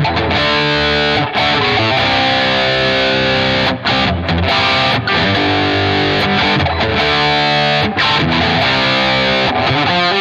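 Epiphone Prophecy SG electric guitar with Fishman Fluence pickups, played through an amp: sustained chords and riffs, with short breaks between phrases.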